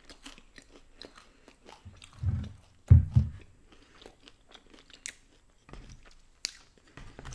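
Close-miked chewing of a mouthful of crisp thin-crust pizza, with many small crunches and a couple of louder, low, muffled bumps a little before the middle.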